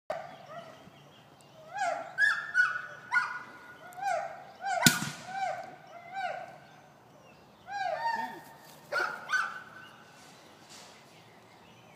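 Several short runs of quacking calls, each note rising and falling in pitch, the kind of duck calling used to draw a retriever's eye to a mark. About five seconds in comes one sharp shot, the loudest sound.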